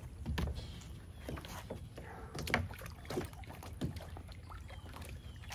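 Irregular small splashes and light knocks as a kayak and paddle are handled in the water during a rescue.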